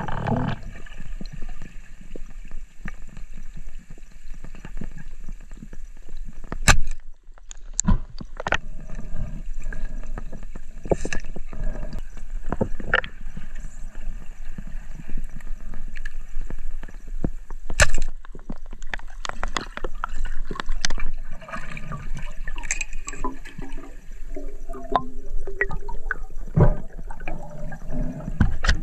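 Muffled underwater gurgling and bubbling of water picked up by a submerged camera, with a few scattered sharp knocks and clicks.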